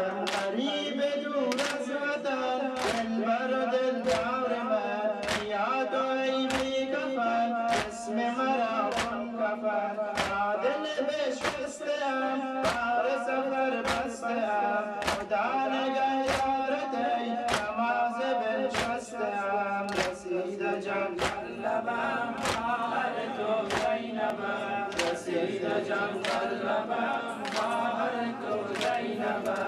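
A group of men chanting a Muharram mourning lament together, with sharp, evenly spaced beats about once a second keeping time.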